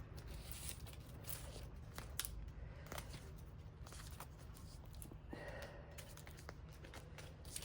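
Faint crinkling, rustling and scattered small clicks of bar tape being stretched and wrapped around a bicycle handlebar by hand, with a longer rustle about five seconds in.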